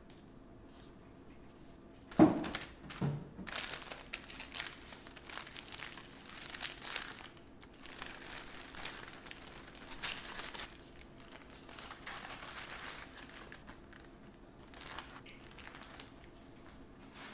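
A plastic zip-top bag and parchment-paper-wrapped meat patties crinkling and rustling as they are handled and packed into the bag, in irregular bursts. Two sharp knocks come about two and three seconds in.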